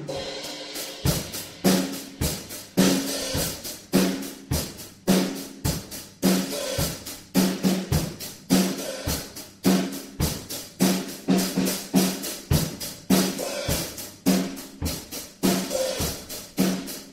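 Instrumental hip-hop beat: a drum kit with kick and snare hitting in a steady repeating rhythm over a short repeating bass-note pattern.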